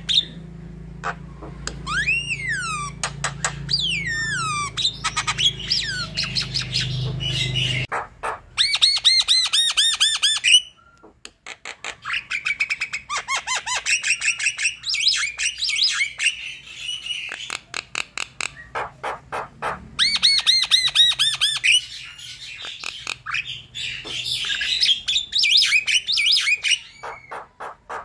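Javan myna singing a long, varied song: sweeping whistles, fast trains of short repeated notes and harsh squawking chatter, with brief pauses. A low hum sits under the first few seconds and stops abruptly.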